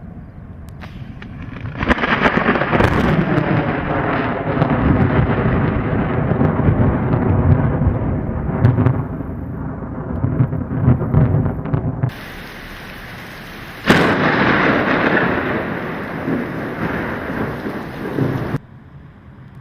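Thunder: a long rolling rumble that swells about two seconds in and stops abruptly, then a sharp crack about fourteen seconds in that rolls off into rumble before cutting off near the end.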